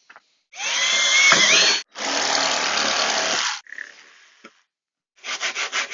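Cordless power saw cutting through the top of a plastic drum to take the lid off, in two loud bursts with a whine that rises and dips in the first. Fainter scraping follows, then quick scratchy strokes near the end.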